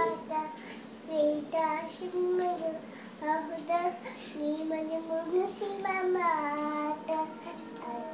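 A young girl singing unaccompanied in a small child's voice, with held notes that bend in pitch.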